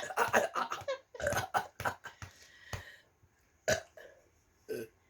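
A person burping: a quick string of short burps, then two more single burps near the end, brought up from gulped cola.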